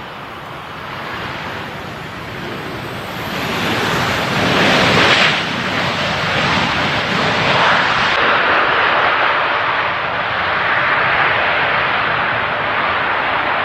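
Jet airliner on its landing approach passing close by: engine noise that builds up, peaks about five seconds in, and stays loud.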